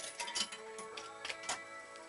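Star Stepper fruit machine playing an electronic tune of beeping tones while its reels spin, with several sharp clicks from the reel mechanism.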